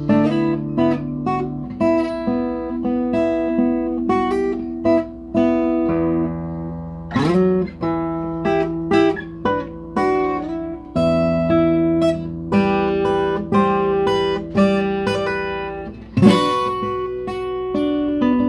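A guitar being played: individually picked notes ringing over held bass notes, with a quick slide up in pitch about seven seconds in and again near the end.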